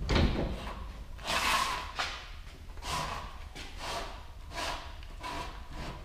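A hand sheet metal brake clunks once at the start, then the sheet-metal duct connector scrapes and rattles in about five short bursts as the piece is shifted and bent in the brake.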